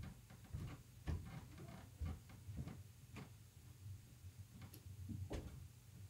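Faint, irregular clicks and ticks, about a dozen, over a steady low hum in a quiet room.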